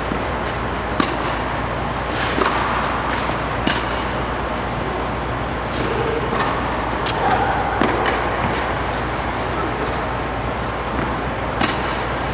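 Tennis balls struck by a racket and bouncing on an indoor hard court: several sharp pops a few seconds apart, over a steady background hum.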